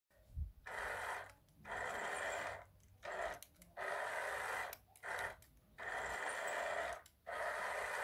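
Small electric drive motor of a wired remote-control toy Chevrolet Impala whirring in short bursts, about seven of them, each lasting around a second with brief pauses between, as the car is driven in short moves.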